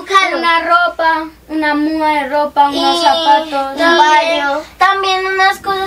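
A child singing unaccompanied, holding notes with a wavering pitch in short phrases separated by brief breaks.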